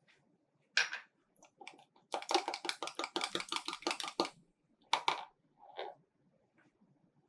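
Kitchen utensils working in a bowl or on a counter: a single sharp click, then a quick run of light clicking strokes, about six a second for two seconds, followed by two more separate knocks.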